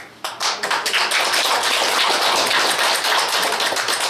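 A roomful of people applauding: many hands clapping in a dense patter that starts about a quarter second in and thins out near the end.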